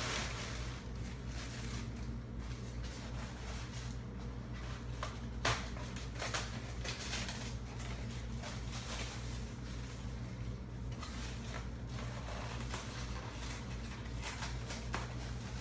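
Small clicks and rustles of statue parts and packaging being handled, with one sharper click about five and a half seconds in, over a steady low hum.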